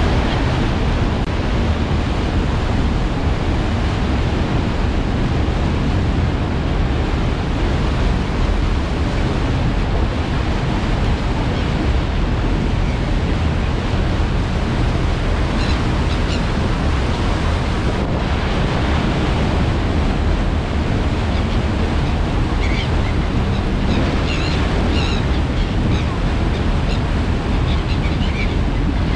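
Wind buffeting the microphone and water rushing along the hull of a moving passenger ferry, with a steady low rumble beneath. A few faint short high chirps come in the second half.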